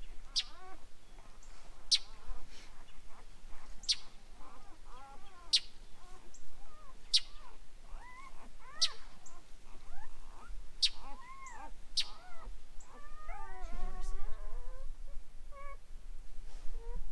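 Newborn Great Pyrenees puppies squeaking and whining in short, rising-and-falling mewing cries, several overlapping about two-thirds of the way through. A sharp, high, very short chirp repeats every second and a half or so until near the end.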